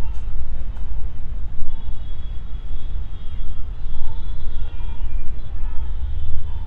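Wind buffeting the microphone: a loud, gusty low rumble that rises and falls in quick jolts.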